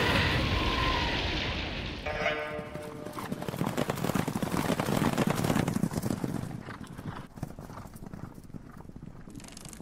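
Light, rapid clicking taps, like tiny hooves or footsteps, loudest from about four to six seconds in: footstep sound effects for small spindly-legged animated creatures. Before them, a rushing whoosh fades out and a short buzzy tone sounds about two seconds in.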